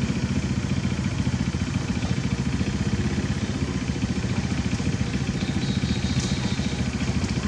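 A small engine idling steadily nearby: a low, evenly pulsing rumble that holds at one level throughout.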